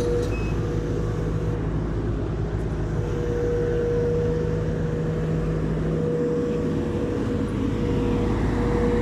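Backhoe's diesel engine running steadily, with a constant whine over the engine.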